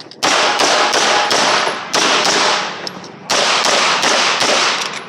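A rapid string of about a dozen pistol shots, roughly three a second, each with a short echo, with a brief pause about three seconds in.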